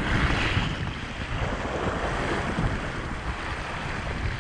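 Wind buffeting the microphone over water rushing and splashing past an inflatable dinghy's hull as it is towed along.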